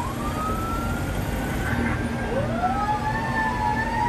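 Fire apparatus sirens wailing, heard from inside the fire engine's cab: two wail tones slowly rising and falling, out of step with each other, over the rumble of the truck's engine and tyres.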